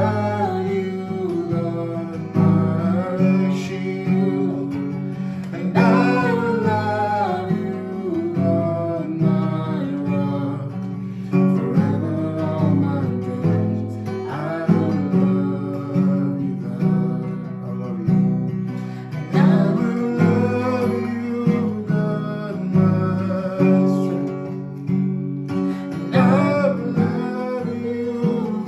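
Worship song played live: a strummed acoustic guitar holding steady chords, with a voice singing in phrases every few seconds.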